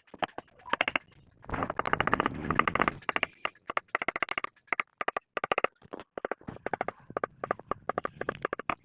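A rapid, irregular series of sharp knocks, several a second, thickest for about a second and a half near the start.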